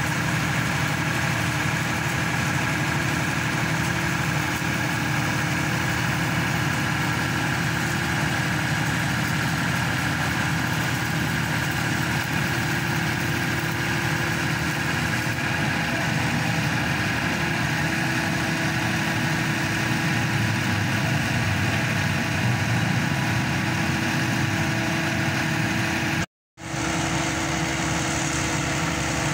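Engine and hydraulic power unit of a hydraulic static pile driver running steadily, a constant hum with steady tones over a low rumble. The sound cuts out completely for a moment near the end, then carries on.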